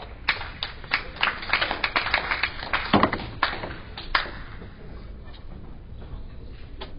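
A run of irregular sharp clicks and taps, about a dozen over four seconds, the loudest near three seconds in. After that only a few faint clicks stand out over the hall's background.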